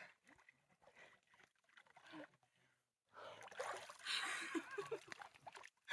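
Lake water splashing and sloshing. It comes in a noisy rush starting about halfway through, after a few faint ticks.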